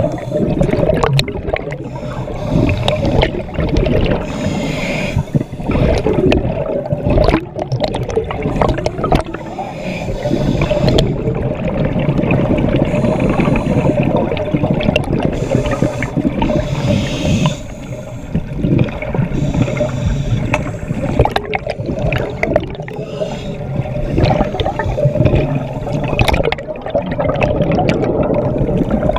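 Scuba divers breathing through regulators, heard underwater: repeated rushing, gurgling bursts of exhaled bubbles over a steady hum.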